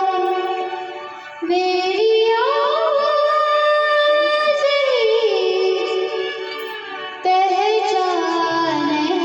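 A young girl singing a slow melody in long held notes, starting a new phrase about one and a half seconds in and again about seven seconds in, with a wavering vibrato near the end.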